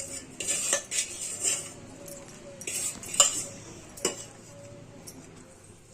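A handful of scattered clinks and knocks of a utensil against a bowl, with short soft rustling in between, as washed and squeezed puffed rice is added to semolina soaked in buttermilk.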